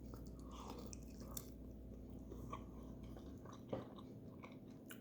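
Faint chewing of a mouthful of fried chicken, with soft mouth clicks and smacks and one slightly louder click a little under four seconds in.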